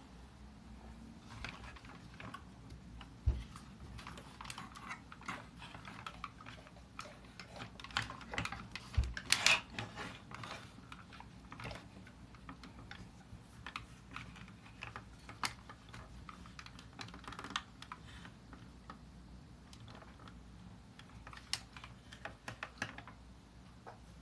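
Hard plastic clicking and light rattling as a Transformers combiner figure is handled and its leg joints and parts are moved, in scattered irregular clicks. A denser flurry comes about halfway through, and there are two low knocks, about three and nine seconds in.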